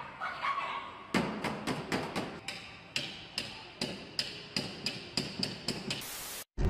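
A rapid, even series of sharp knocks or strikes, about four a second. It ends in a short burst of hiss that cuts off suddenly.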